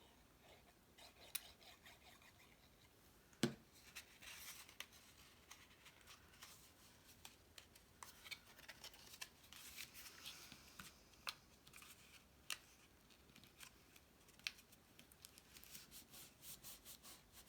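Faint handling of cardstock pieces: soft paper rustles and small clicks and taps, with one sharper tap about three and a half seconds in and a quick run of small clicks near the end.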